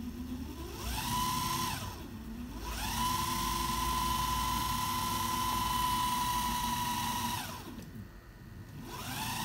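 Small DC motor of a homemade belt-driven bench drill, run from an 8 V supercapacitor bank through a knob-adjusted speed controller, whining as it changes speed. It spins up briefly about a second in. From about three seconds it speeds up, holds steady, then winds down, and it starts up again at the very end.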